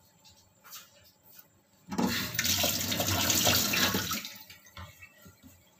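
Water running hard from a tap for about two seconds. It starts suddenly about two seconds in, then is shut off and dies away.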